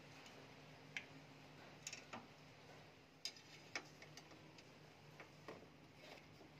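Faint, irregular clicks and light taps of a hand tool working on a car grille's screw bolts, about half a dozen over a few seconds, over a faint steady hum.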